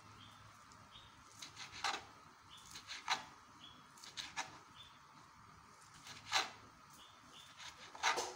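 Kitchen knife cutting through a soft block of meat and striking a plastic cutting board: several sharp, irregular taps and clicks a second or so apart. Faint short high chirps repeat in the background.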